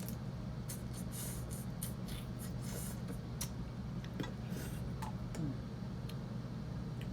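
Crab shells being cracked and picked apart by hand while eating: scattered sharp clicks and crunches with a few short scraping rustles, over a steady low hum.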